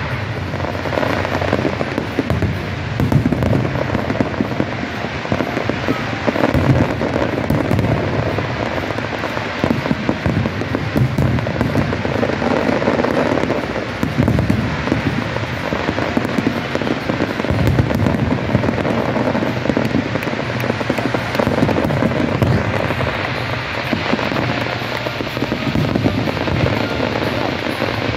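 Fireworks display going off in a dense, continuous barrage of booms and crackling bursts.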